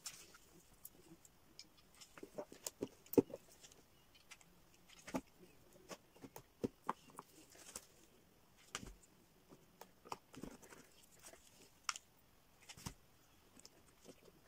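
Hands at work with a hot glue gun and pieces of bark: irregular light taps, clicks and rustles as things are picked up, set down and pressed into place. The sharpest tap comes about three seconds in.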